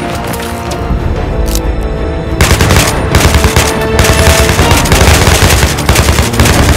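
Rapid automatic gunfire sound effects over a dramatic film score; the shots get denser and louder from about two and a half seconds in.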